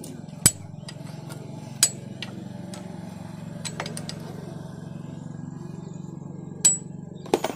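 Sharp metallic clinks of a ring spanner against the engine oil drain bolt of a Bajaj Platina as it is fitted and worked loose: about a dozen irregular clinks, the loudest about half a second in, near two seconds, and twice near the end.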